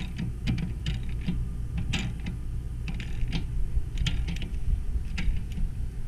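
Wrench tightening an RV water heater's plastic drain plug back into the tank: scattered sharp clicks of the tool on the fitting, a few a second at uneven intervals, over a steady low rumble.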